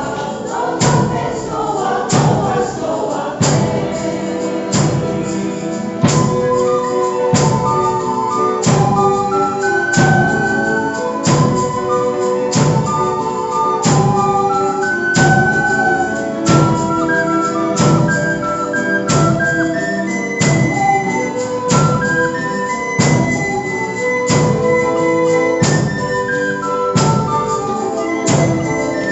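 Live music: a percussion beat at about two strokes a second under a melody of held notes. Group singing in the first few seconds gives way to the instrumental melody.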